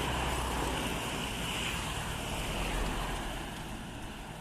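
A road vehicle passing: engine rumble and tyre noise that dies away over the last second or so.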